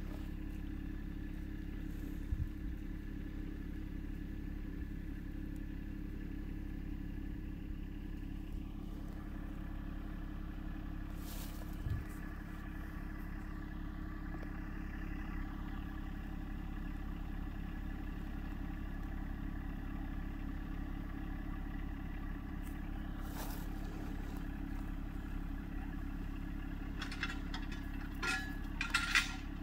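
John Deere 1025R compact tractor's three-cylinder diesel engine running at a steady speed, with a few sharp clanks and rattles near the end.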